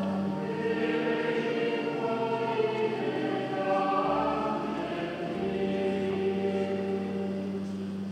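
Choir singing slow, long-held notes.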